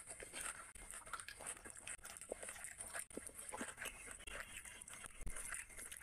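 Close-up chewing and wet mouth sounds while eating a raw green chilli, with soft crackles of grilled chicken being pulled apart by hand.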